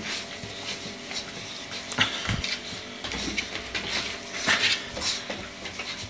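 Puppies chewing and tugging at a piece of raw meat on straw bedding: irregular chewing clicks and scuffling, with a few louder knocks about two and four and a half seconds in.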